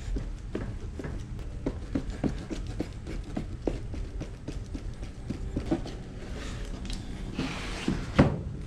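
Plastic spreader mixing Bondo body filler with its hardener on a cardboard box: irregular taps and scrapes of the spreader against the cardboard, a few a second, with a louder knock near the end.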